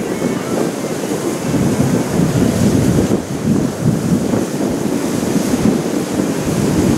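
Wind buffeting the microphone: a loud, uneven rumble that swells and dips.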